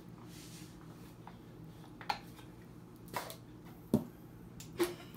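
Handling of a plastic squeeze bottle with a flip cap at the table: four short, sharp clicks and knocks, about a second apart, in the second half.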